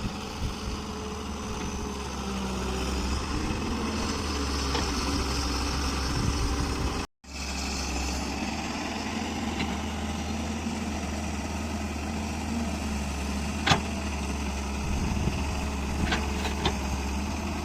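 Diesel engine of a large Volvo excavator running steadily, with a low even hum. It cuts out for a moment about seven seconds in, and a single sharp click sounds near the end.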